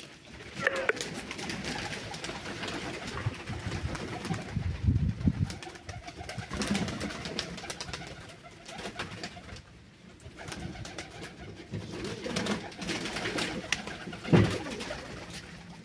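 Domestic pigeons cooing, with scattered rustling and clicks from the birds being handled.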